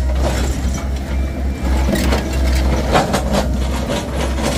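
Heavy truck engine running with a steady low rumble, with irregular knocks and clatter over it.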